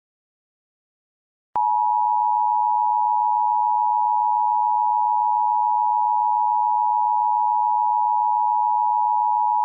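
Emergency Alert System attention signal: a steady, unchanging electronic alarm tone that comes in about a second and a half in, after silence. It marks an emergency bulletin about to be read, here a tornado warning.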